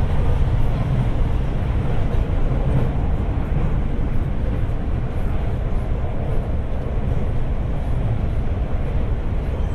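Interior running sound of a Guangzhou Metro Line 3 B4-series train: a steady, fairly loud low rumble of the car on the track.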